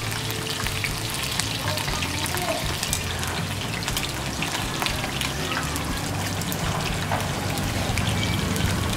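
Chicken wings deep-frying in a pan of hot oil: a steady sizzle with many small crackles and pops.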